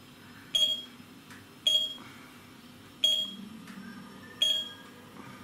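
Digital alarm clock beeping four times as its setting buttons are pressed, each a short, high electronic beep, spaced a little over a second apart.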